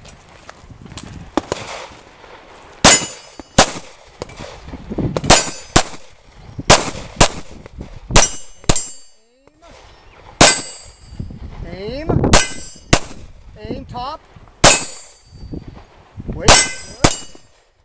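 A pistol fired in a slow string of single shots, about a second or two apart, with steel plate targets clanging and ringing when hit.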